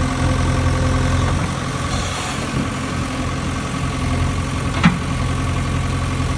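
A steady, unchanging engine idle with a low hum, and one short click just before the five-second mark.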